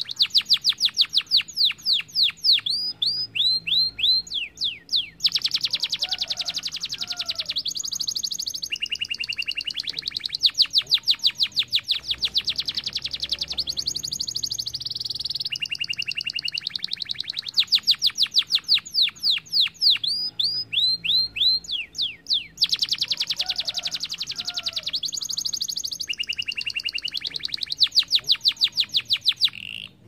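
Domestic canary singing: long, fast trills and runs of quick downward-sweeping whistled notes, phrase after phrase with only brief gaps.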